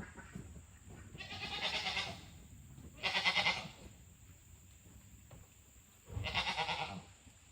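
A young chicken squawking in three loud, harsh, quavering calls, about a second and a half apart and then after a longer gap.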